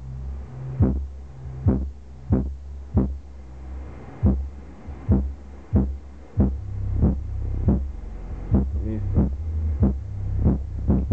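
Clarion 10-inch shallow-mount subwoofer in a maze-vented box playing a bass-heavy test track: deep sustained bass notes under a punchy beat of about three hits every two seconds.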